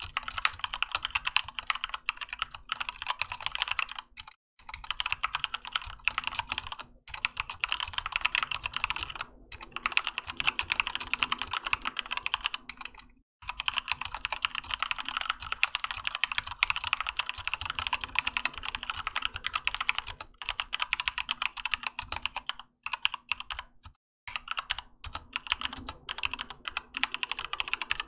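Fast continuous typing on a Keychron K2 mechanical keyboard with linear Gateron Red switches and OEM-profile PBT keycaps, a dense run of keystroke clacks broken by a few brief pauses.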